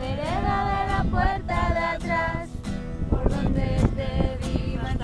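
Background pop music: a sung melody in a high voice over a beat with guitar.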